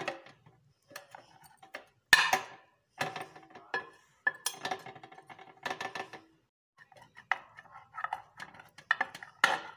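Knife cutting a sandwich on a plate: irregular scraping and clinking strokes of the blade against the plate, the loudest a sharp knock about two seconds in.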